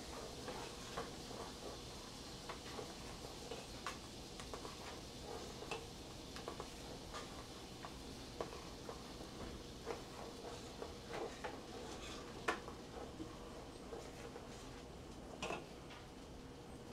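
A spoon stirring sausage gravy in a stainless steel stockpot, making scattered light clicks and scrapes against the pot at an uneven pace, over a faint steady hum.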